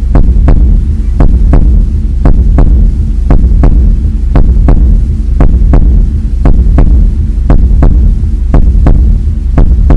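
A loud, deep steady hum with sharp clicks laid over it, coming in pairs about once a second, a steady throbbing pulse.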